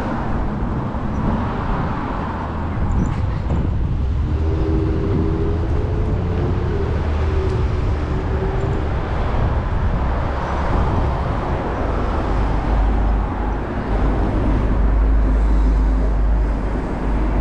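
Strong wind buffeting the microphone outdoors: a loud, steady low rumble.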